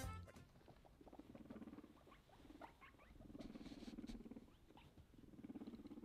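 Guinea pig giving faint, low, pulsing purr calls in four short bursts, with a few soft clicks between them.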